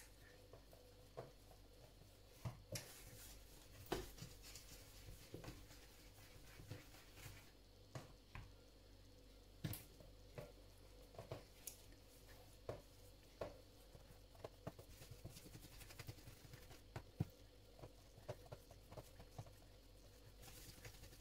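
Quiet, irregular soft pats and taps of hands shaping olive-oil bread-roll dough on a floured stainless-steel worktop, about one or two a second.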